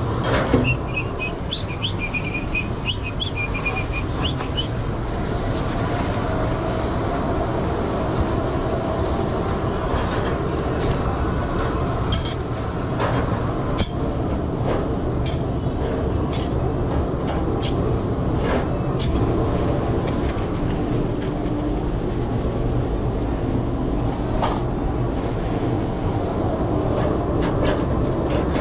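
Dishwashing in a commercial kitchen: a steady rumble of kitchen machinery, with crockery and cutlery clinking sharply now and then, in a busy run from about ten to twenty seconds in and again near the end.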